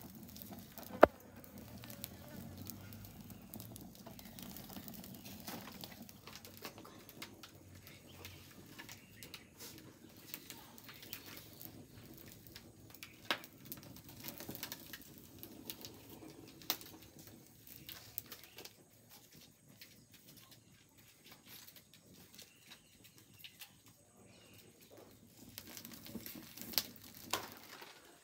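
Wood fire crackling with scattered sharp pops, one loud pop about a second in and a cluster of pops near the end, while a whole chicken is held in the flames to singe off its remaining feathers.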